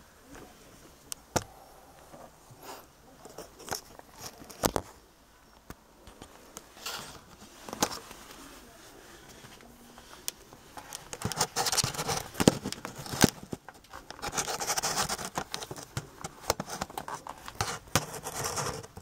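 Irregular knocks, clicks and scraping, sparse at first and then a busier stretch of scraping and rustling in the second half, with sharp knocks about twelve and thirteen seconds in. No engine is running.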